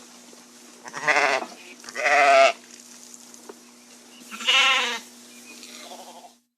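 Sheep bleating three times, each a wavering baa of about half a second, the last one the longest.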